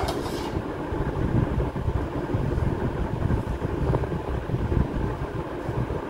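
Low, uneven rumbling and rubbing of hands kneading a crumbly semolina, flour and ghee mixture in a clay bowl.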